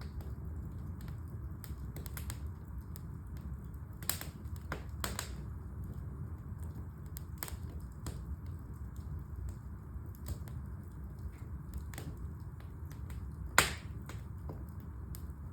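Wood fire in a fireplace crackling, with a steady low rumble under scattered sharp snaps and pops. A single loud pop comes near the end.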